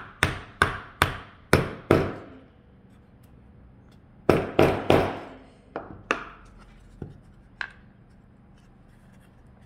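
A small 8-ounce hammer driving a nail into a wooden box: about five quick strikes, a pause, three more strikes, then a few lighter taps.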